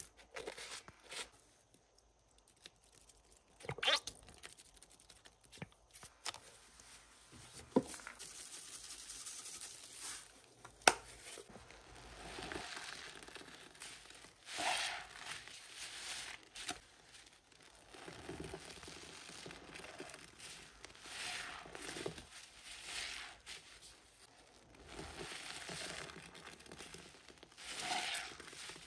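Foam-soaked kitchen sponges squeezed over and over in rubber-gloved hands, with a wet squelching and crackling of soap foam about every second or two. A few sharp clicks come in the first part, before the squeezing starts.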